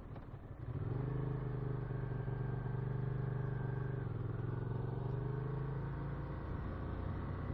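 Ducati Monster 695's air-cooled L-twin engine pulling steadily under way, heard through a headset mic inside the rider's helmet over a constant rumble. The engine note comes in about a second in, shifts slightly about four seconds in and rises gently, then fades near the end.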